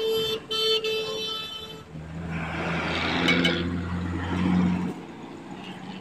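A vehicle horn honks twice in long, steady blasts during the first two seconds. Then a heavy truck's engine drones past close by, with tyre and road noise, loudest between about three and five seconds in.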